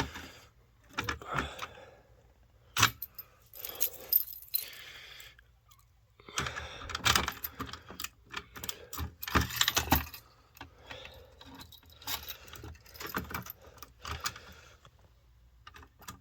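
A bunch of keys jangling in irregular bursts, with clicks and scrapes as a key is worked into a fire alarm pull station's reset lock.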